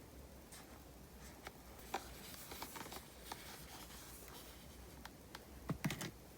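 Glossy, thick slime being handled, giving off scattered small clicks and fine bubble pops, with a louder cluster of pops just before the end.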